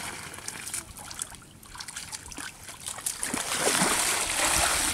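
Shallow muddy water sloshing and trickling as a woven bamboo basket is scooped through a flooded rice paddy and lifted, water draining out through its weave. The sound is quieter in the first half and grows louder about three seconds in.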